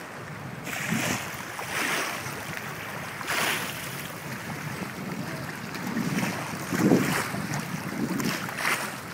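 Small waves lapping and splashing in shallow water right at the microphone, coming in irregular surges every second or two, with wind buffeting the microphone.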